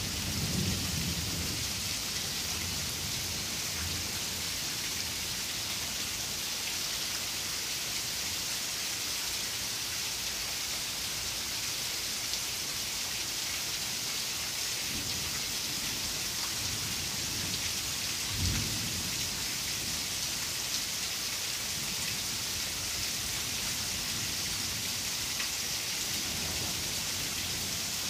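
Heavy rain falling steadily, a continuous hiss, with low rumbles of thunder: one fading in the first second, more rolling in from about halfway, and a short low boom about two-thirds of the way through, the loudest moment.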